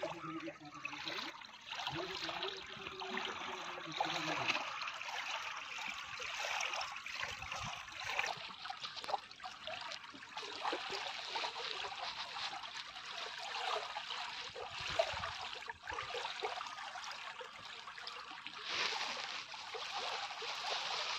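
Small river waves lapping onto a sandy, rocky shore, the water washing and fizzing as each wave breaks and draws back, swelling in surges every few seconds.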